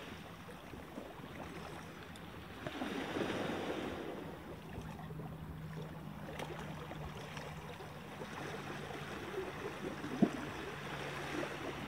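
Small waves washing against a rocky shoreline, with wind, in a steady hiss that swells and eases, and a faint steady hum underneath. A single short tick about ten seconds in.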